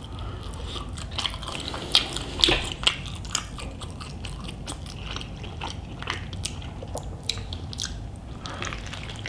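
Close-miked chewing of a mouthful of food, with a steady run of wet mouth clicks and smacks; a few louder smacks come about two to three seconds in.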